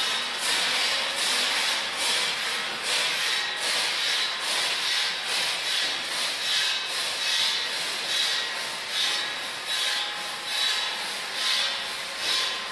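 Machinery of a sunflower seed roasting and processing line running, making a rhythmic rasping swish about every three-quarters of a second, as of seeds being moved and tumbled in the equipment, over a faint steady machine hum.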